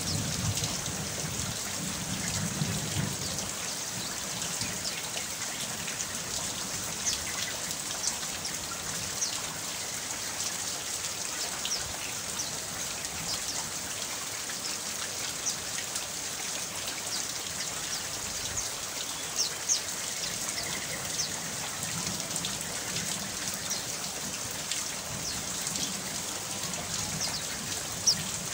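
Steady rain: a dense hiss of falling water with many separate drops ticking over it. A low thunder rumble dies away in the first few seconds.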